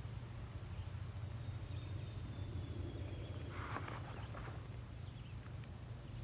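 Quiet outdoor background at a pond: a steady low rumble with a faint, thin high steady tone, and a brief rustle a little past halfway.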